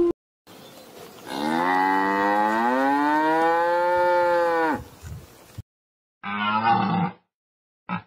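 A Holstein cow mooing once, a long call of about three and a half seconds that rises in pitch and then holds. Near the end comes a shorter, rough animal call.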